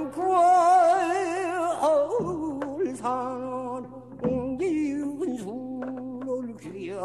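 A Korean danga sung in pansori style: one voice holds long notes with heavy, wide vibrato and slides between pitches, with a few sparse plucked Korean zither notes between phrases.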